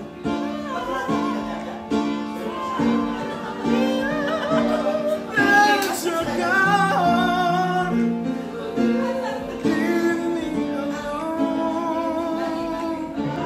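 Voices singing a song live, accompanied by piano and acoustic guitar.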